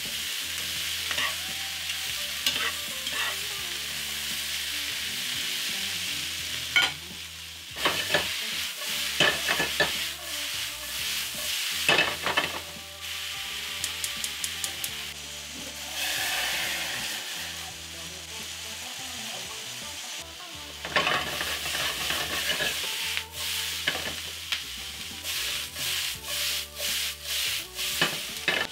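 Sliced bell peppers and onions sizzling in hot oil in a frying pan, with a steady hiss. Metal tongs toss and stir them, clacking against the pan in bursts of sharp clicks.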